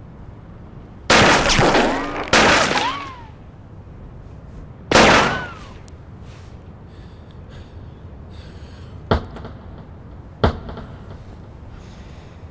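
Pistol shots in a film gunfight: three loud bangs, the first two about a second apart and the third a few seconds later, each ringing out with a gliding whine. Two shorter, sharper cracks follow near the end.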